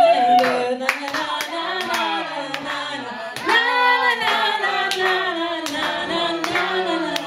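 A woman singing a Swedish ballad in a drawn-out, held melodic line, with sharp rhythmic hand claps keeping time about twice a second.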